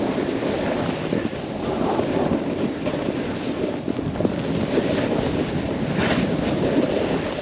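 Snowboard sliding over snow with wind rushing over the microphone: a steady, rough noise.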